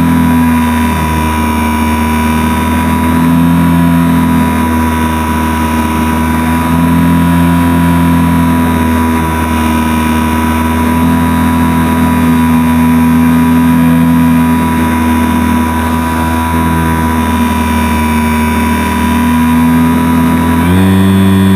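HobbyZone Super Cub RC plane's electric motor and propeller running in flight, heard from a camera mounted on the plane: a steady hum whose pitch steps down and back up several times as the throttle changes, with a thin steady high whine over it.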